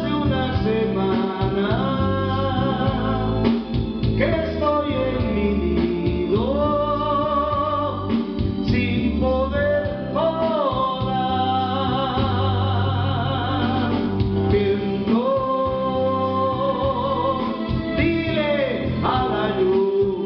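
A man singing into a microphone over recorded backing music, holding long notes with vibrato and sliding up into phrases.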